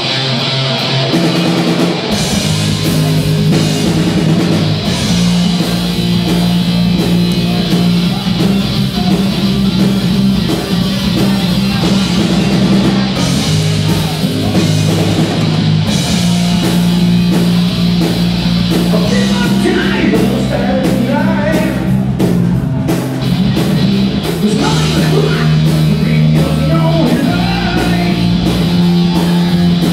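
Live rock band playing loud through a club PA: distorted electric guitars, bass and drums, with a singer. The guitar leads in and the full band with drums comes in about two seconds in.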